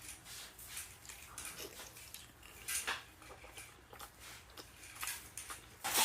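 Close-miked eating sounds: a run of sharp clicks and smacks of mouth and utensils against dishes, with louder ones about three seconds in and near the end.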